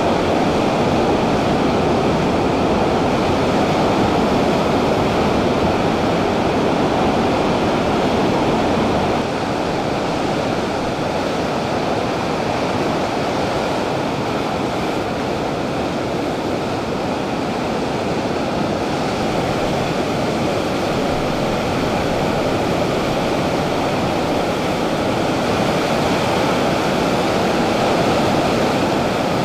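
Ocean surf breaking and washing over rocks and sand, a steady wash of waves that drops slightly in level about nine seconds in.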